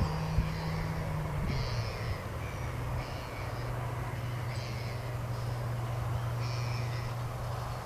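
A steady low hum that drops in pitch about a second and a half in, with short high chirps repeating every second or so.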